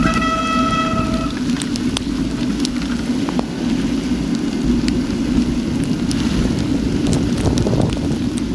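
Heavy rain and rushing wind noise on an action camera's microphone during a fast mountain-bike ride through a storm, with scattered ticks of raindrops hitting the camera. A steady high-pitched whine sounds for about the first second.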